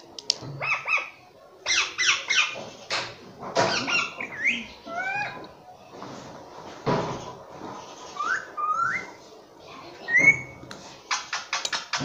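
Indian ringneck parakeet chattering close up: short squawks and chirps, some gliding up and down in pitch, mixed with bits of mimicked speech, and a quick run of sharp calls near the end.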